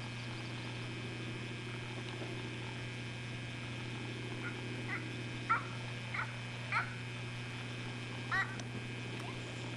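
A steady low hum throughout, with about six short high chirps or squeaks in quick succession partway through.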